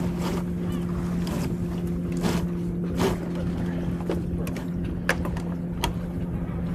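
A sailboat under way: a steady wash of wind and water with a steady low hum, and several sharp clicks and knocks from deck gear as the crew works the traveler and lines.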